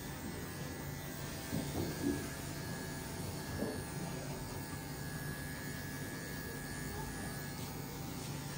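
Cordless electric dog clippers running with a steady hum as they clip through dog hair, with a few brief knocks from handling about two and three and a half seconds in.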